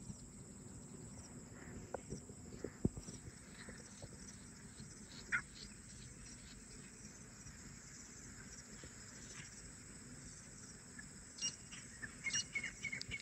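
Faint steady chirring of insects, with a couple of short clicks. Near the end come a few faint repeated notes from distant wild grey francolins, calling in answer to decoy birds.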